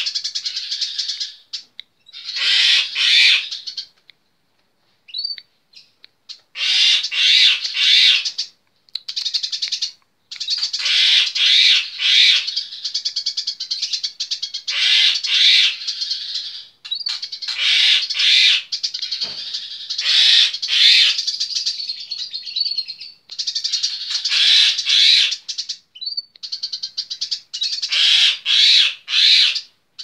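Caged Eurasian tree sparrow giving its rapid, high chattering song (the 'cerecet'), in repeated bursts of a second to several seconds broken by short pauses.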